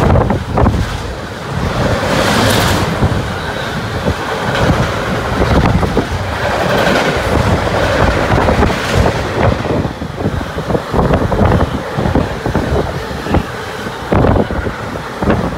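Freight train of double-deck car-carrier wagons rolling past close by, with steady rolling noise and a run of wheel knocks over the rail joints.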